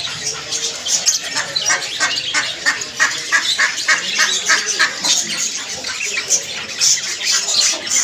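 Many caged lovebirds and finches calling together: a dense run of short, shrill chirps and squawks, several a second and overlapping.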